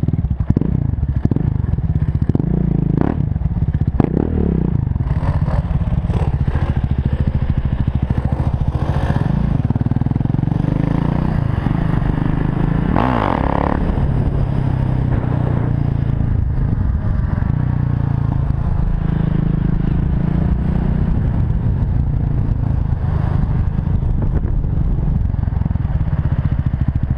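KTM 690 Duke's single-cylinder engine running under way, heard from a helmet-mounted camera. The revs rise and fall as it rides, with a quick rise in pitch about halfway, and a few knocks in the first few seconds.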